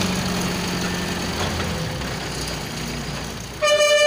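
A vehicle engine running steadily, easing off slightly. Near the end a loud vehicle horn sounds once, held for just under a second.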